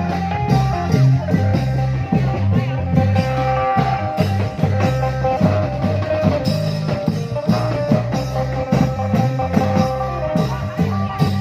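Thai klong yao long-drum band playing: the long drums beat a steady repeating rhythm under a wavering lead melody line.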